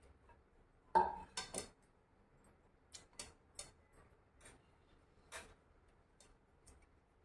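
Kitchen utensils clinking: one sharp, ringing knock on a dish about a second in, followed by a scattering of lighter taps and clicks.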